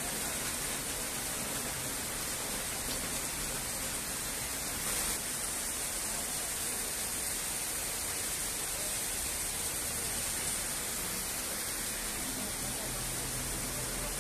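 Heavy monsoon rain pouring down in a steady, even hiss.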